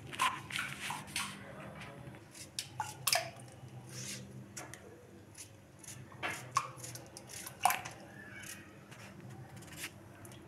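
Knife cutting a raw potato held in the hand, the diced pieces dropping into a pot of water with irregular small plops and splashes, over a faint steady hum.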